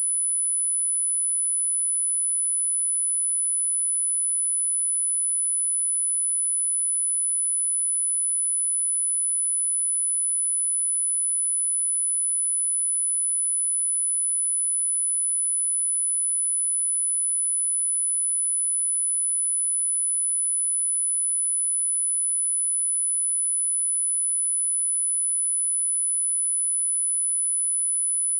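A single pure sine-wave test tone at 9986 Hz, a steady high-pitched whine held at one pitch and level, used for speaker testing and for shaking water and dust out of a speaker.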